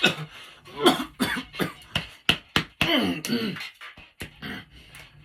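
A woman coughing in a long fit of short, dry coughs, about a dozen in quick succession, a few of them with a voiced, hoarse edge.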